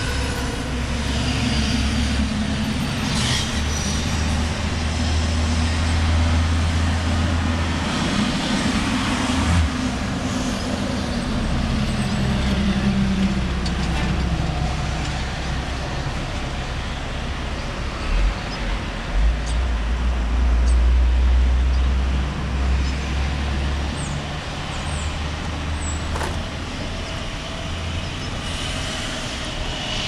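Road traffic: motor vehicle engines running with a steady low hum, one engine note sinking in pitch a little before halfway, and a louder low rumble about two-thirds of the way in.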